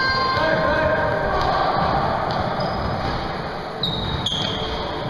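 Basketball game in a gym: sneakers squeak on the court floor a few times near the end and the ball bounces once, over a steady din of voices echoing in the hall.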